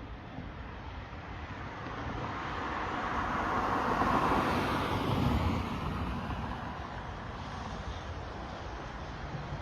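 A vehicle passing by: its noise swells to a peak about four to five seconds in, then fades.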